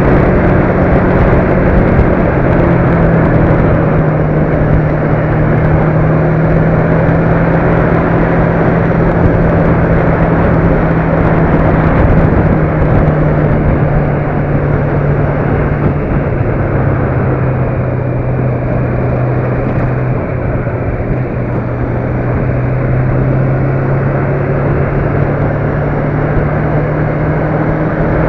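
Motor vehicle driving along a road: a steady engine hum under road and wind noise. The engine pitch drops about halfway through and climbs again near the end.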